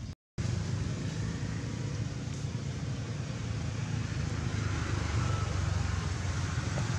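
Steady low rumble of outdoor background noise, cut off for a split second just after the start.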